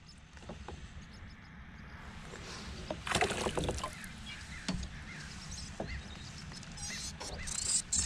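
Fishing kayak on a river: a low steady rumble of wind and water, a short rush of noise about three seconds in, and a light knock a little past halfway.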